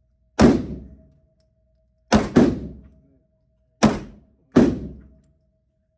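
Five handgun shots: one, then a quick pair, then two more, each a sharp crack with a short echoing decay.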